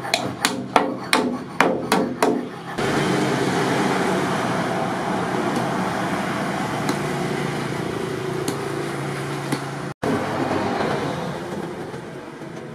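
Hammer striking a cold chisel that is cutting through a rusty steel plough disc: about seven sharp metallic blows, roughly three a second. A steady background noise follows.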